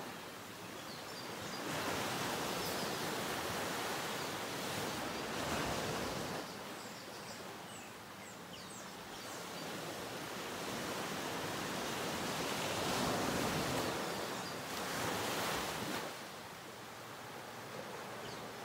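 Ocean waves washing on a sandy shore: a steady rushing that swells into two long surges and eases off between them, with a few faint high chirps.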